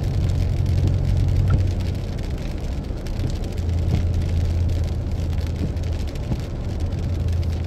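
Steady drone of a vehicle's engine and tyres on the road, heard from inside the cabin while driving, with an even hiss over it.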